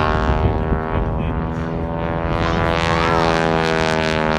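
Stearman biplane's engine and propeller running loud as it flies past, its pitch drifting slowly down.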